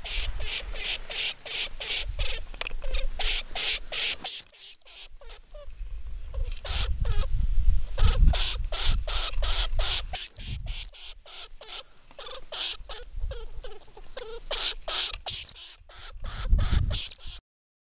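Lemming chattering: rapid sharp clicks at about four a second, broken by a pause about five seconds in, with a few brief high squeaks. Low rumbling comes in twice, in the middle and near the end.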